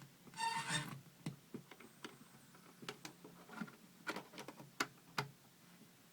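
Circuit-bent sound effects toy: a brief burst of its electronic sound about half a second in, then scattered clicks, like its push buttons and switches being pressed.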